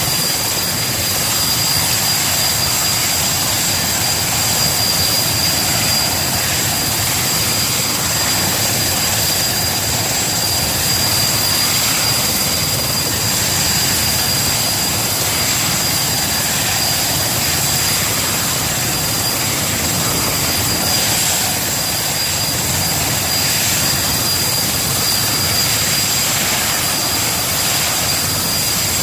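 Erickson S-64 Air-Crane heavy-lift helicopter running steadily: a high, continuous turbine whine from its twin turboshaft engines over an even rumble of engines and rotor.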